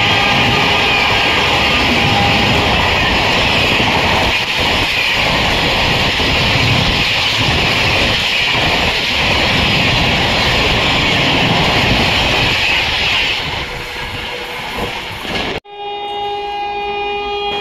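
Rajdhani Express LHB coaches passing at high speed: a loud, steady rush of wheels on rails with a strong hiss. A horn trails off in the first couple of seconds, and the rush fades out from about 13 seconds in. After a sudden cut near the end, an approaching train's horn sounds as one steady note.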